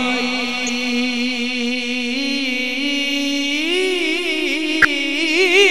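A man singing a naat, drawing out one long held note that climbs into wavering, ornamented turns about three and a half seconds in. There is a single sharp click near the end.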